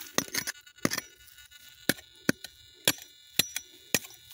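A small hand hoe chopping into hard, dry soil, dug out around a buried iron object: about eight sharp strikes at an uneven pace, some with a metallic clink.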